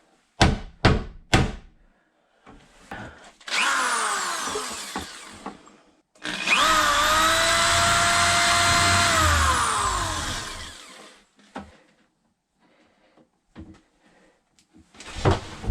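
Three sharp clicks, then a small power tool motor running twice. The second run holds a steady pitch for about three seconds, then winds down as it is released.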